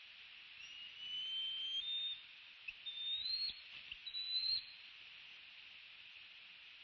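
A bird's high, thin whistled call in several drawn-out notes that step and glide upward, over the steady hiss of the nest-cam microphone.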